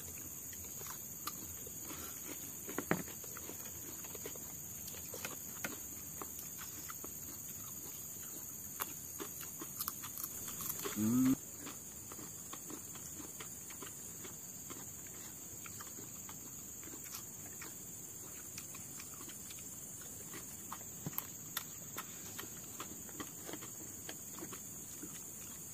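Steady high-pitched chirring of insects, with small clicks and clatter from people eating by hand off banana-leaf-lined plates, and a brief voice-like sound about eleven seconds in.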